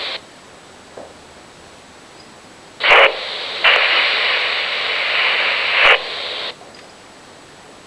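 RadioShack Pro-97 police scanner: a transmission cuts off at the start, then a little under three seconds in the squelch opens with a burst of static. For about three and a half seconds a keyed channel carries only a steady hiss with no voice, then cuts off suddenly, leaving faint low hiss.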